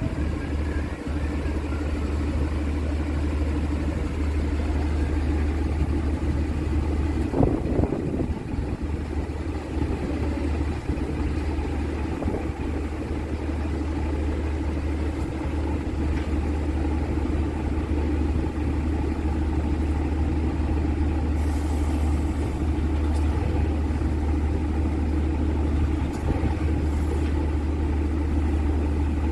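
Scania P380 truck's five-cylinder diesel engine running at a steady idle while it drives the loader crane's hydraulics as the boom is raised.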